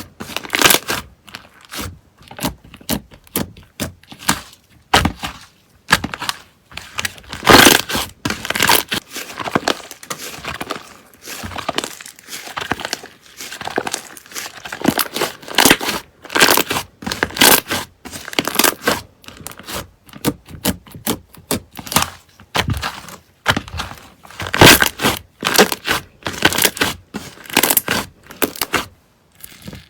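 Slime being pressed and squeezed by hand, making irregular crackles and pops, a few a second, with a few louder bursts.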